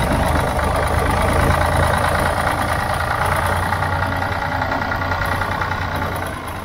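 1965 Ford 3000 tractor's three-cylinder engine idling steadily.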